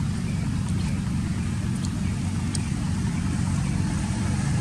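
A steady low rumble, with a few faint short clicks above it.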